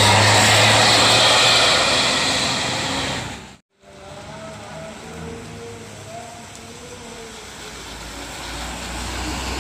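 A Rosalia Indah coach's engine running with tyre and rain hiss on a wet road as it pulls away. It cuts off abruptly about three and a half seconds in, then gives way to quieter rain and road hiss that grows louder toward the end as another bus approaches.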